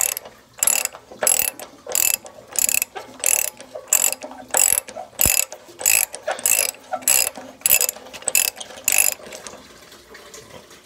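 Socket ratchet clicking in quick, even back-and-forth strokes, about one and a half a second, as it unscrews an anode rod that has just been broken free from the top of a water heater tank; the clicking stops about nine seconds in.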